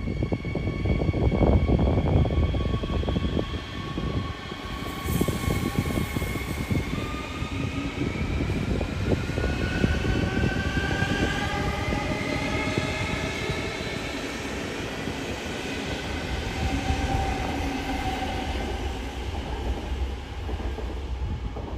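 Train moving through a station: a steady rumble and clatter of wheels on track, with several high whining tones that slowly rise in pitch.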